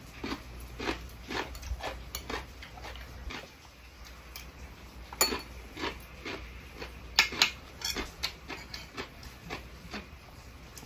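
Chopsticks and a spoon clicking and scraping against ceramic plates and a rice bowl during a meal, irregular light taps with a few sharper clicks in the second half, over a low steady hum.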